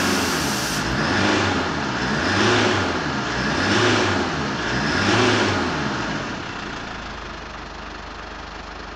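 2011 Ford Ranger's 3.0-litre four-cylinder turbo-diesel engine being revved, rising and falling about four times around 3,000 rpm, then dropping back to a steady idle for the last couple of seconds.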